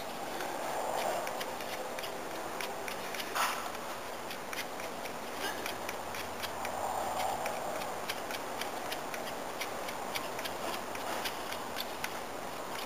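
A knife carving and scraping a dry sunflower-stalk hand-drill spindle to taper its tip. It makes a steady scraping with many small irregular ticks and one sharper click about three and a half seconds in.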